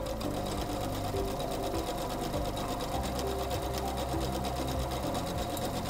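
SINGER C430 computerized sewing machine running steadily at a rapid, even stitching rhythm. It is sewing a dense, elongated satin scallop stitch under the satin stitch foot B.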